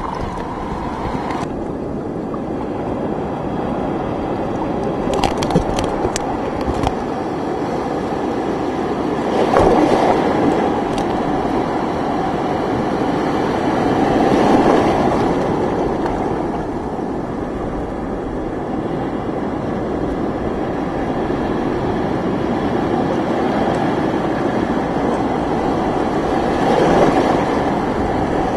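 Storm-driven surf churning and washing around a camera at water level: a steady rush of breaking water that swells louder as bigger waves break over it, about ten seconds in, again around fifteen seconds and near the end.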